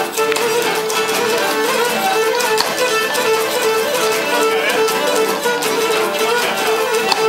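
Live Cretan folk dance music: a bowed string lead plays a quick, repeating melody over plucked lutes strumming a steady rhythm.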